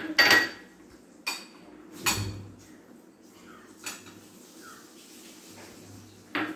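Small bowls clinking and knocking against a glass mixing bowl as fruit-salad ingredients are tipped in. There are about five separate clinks with a short ring, the loudest near the start and about two seconds in.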